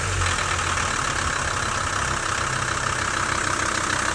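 VW 2.5 TDI five-cylinder diesel (AJT) idling steadily just after a start, running a smooth idle on newly fitted PP1 Xtraflo injectors and a hybrid turbo.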